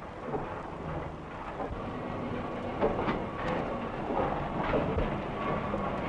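Steam locomotive at a standstill: a steady hiss of steam with scattered clanks and knocks.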